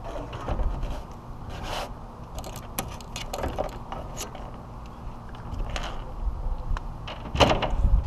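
Scattered knocks and scrapes of hands working on the metal parts of a rooftop package air conditioner, with the condenser fan assembly lifted aside, over a steady low background noise. The unit itself is not running.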